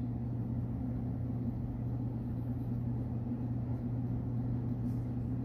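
Steady low background hum with no change in pitch or level, the kind of hum an electrical fixture or ventilation gives off in a room.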